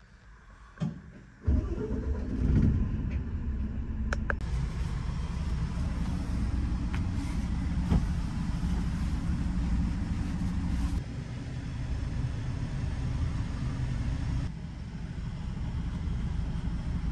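Steady low rumble of the bus's engine and running noise heard inside a passenger cabin, coming in suddenly about a second and a half in, with a few faint clicks and knocks of handling.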